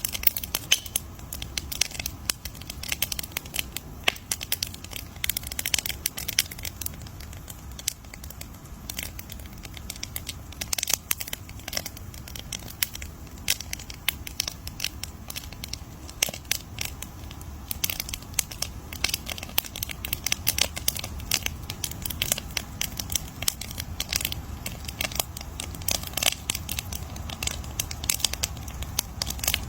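Campfire burning and crackling: many irregular sharp pops and snaps from the burning wood over a low steady rumble of the flames.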